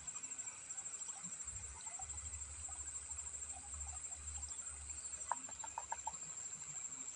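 Faint outdoor ambience: a steady high-pitched insect trill over a low steady background noise, with a quick run of about six clicks a little after five seconds in.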